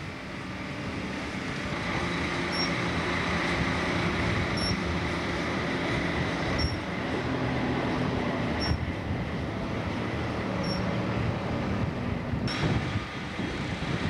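John Deere wheel loader's diesel engine running, getting louder over the first two seconds and then holding steady, with wind noise on the microphone.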